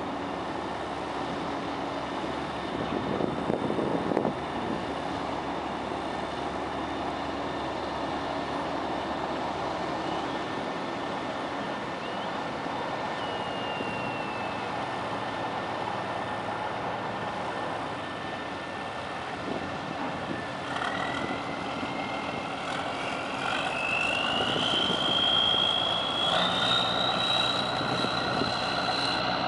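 Boat engine running steadily; about two-thirds of the way through a whine joins it and rises in pitch, then holds high, as the engine works harder.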